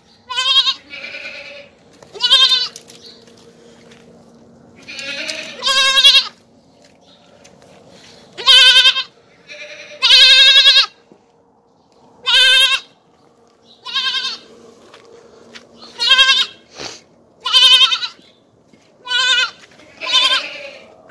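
A young goat (kid) bleating over and over, about a dozen loud calls each lasting under a second, one or two seconds apart, each with a quavering pitch.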